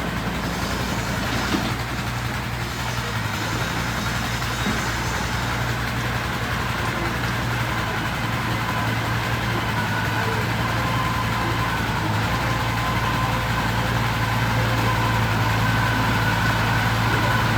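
Engine of a heavy construction vehicle running steadily, a continuous low drone that grows slightly louder toward the end.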